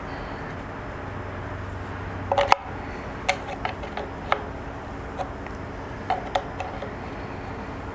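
Scattered light clicks and taps of a wrench and screwdriver working the clutch adjuster screw and lock nut on a motorcycle's primary cover. A sharper cluster of clicks comes about two and a half seconds in, then single clicks every second or so, over a steady low hum.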